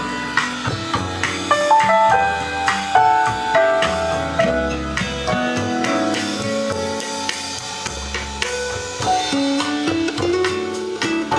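A song with drums, played from a CD through a Gradiente STR-1050 vintage receiver and wooden floor-standing loudspeakers and heard in the room at a loud, steady level.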